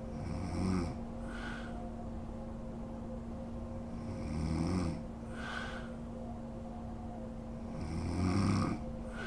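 A sleeping woman snoring: three snores about four seconds apart, each a low snore on the breath in followed by a shorter airy breath out, over a steady low hum.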